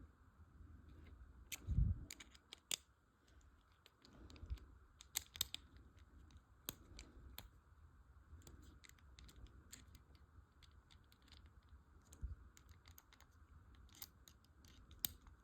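Irregular small clicks and taps of a screwdriver working a tiny screw into plastic model parts as the parts are handled, with a few soft thumps.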